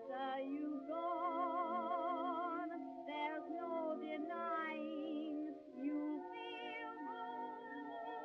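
Background music: several sustained, wavering melodic lines held together, with no bass.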